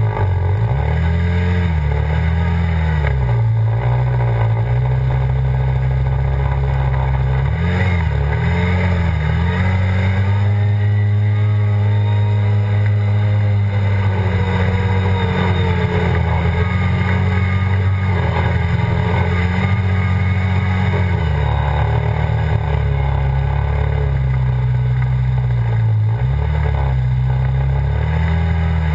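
Engine of an off-road vehicle being driven over sand, its pitch rising and falling with the throttle several times, held fairly steady for about ten seconds in the middle.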